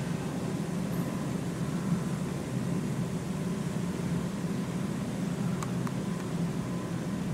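Steady low hum with an even hiss over it, like ventilation or machinery running in the background, with a couple of faint clicks about five and a half seconds in.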